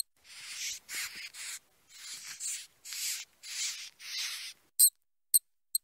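A mouse gnawing: a run of short scratchy nibbling rasps, about two a second. Brief high squeaks come once at the start and three times near the end.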